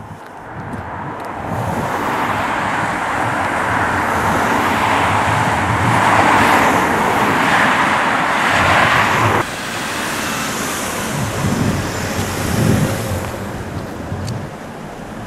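Car passing close by on an asphalt road: its tyre and engine noise swells over several seconds and then cuts off abruptly. Lower road-traffic noise follows.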